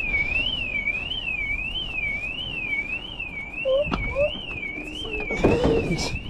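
Car alarm sounding: one electronic tone sweeping up and down over and over, about three sweeps every two seconds. A single sharp knock comes about four seconds in.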